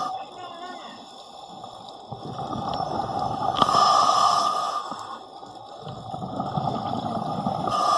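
Scuba diver breathing through a regulator in a full-face mask underwater: a hissing inhalation alternates with exhaled bubbles gurgling, in a steady cycle of about four seconds, twice through.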